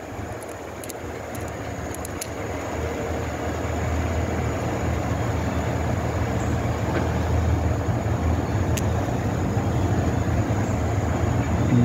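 Steady low rumble of a motor vehicle, building over the first few seconds and then holding.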